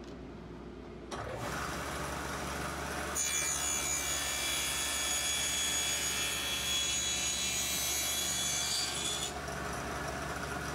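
Table saw cutting into the end of a board held upright in a tenoning jig. It gets louder about a second in, is loudest with a high whine from about three to nine seconds in, then eases somewhat.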